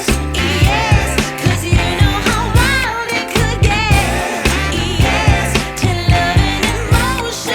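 Background pop song with singing over a steady beat.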